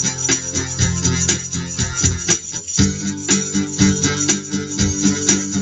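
Acoustic guitar strumming chords in a steady rhythm, with a meia lua (half-moon tambourine) jingling on the beat.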